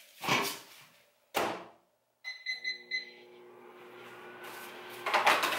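Over-the-range microwave oven: two clunks of its door, then four short keypad beeps, then the oven starting up and running with a steady low hum. A brief loud burst of noise comes near the end.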